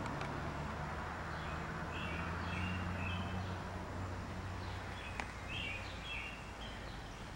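A songbird singing two short phrases of chirps, about two seconds in and again past the five-second mark, over a steady low rumble of outdoor background noise.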